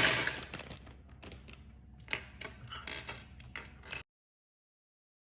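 Hard objects handled and set down: a loud clatter, then a run of uneven clicks and clinks, cut off abruptly about four seconds in.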